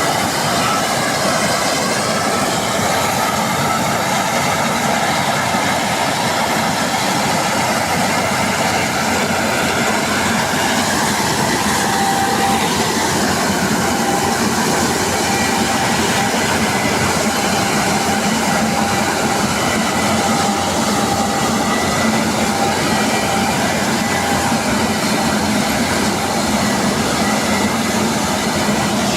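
Combine harvester running steadily at work: a loud, even mechanical rush and rattle with faint steady whines.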